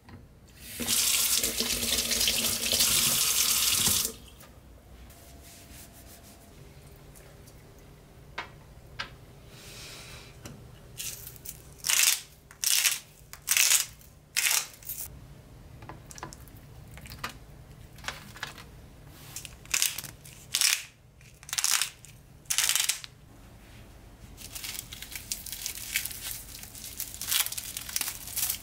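Water from a single-lever kitchen mixer tap running into a stainless steel sink for about three seconds, then shut off sharply. Then come scattered short, sharp rustling and handling sounds of food preparation, and near the end a denser crinkling as a garlic bulb is peeled from its net.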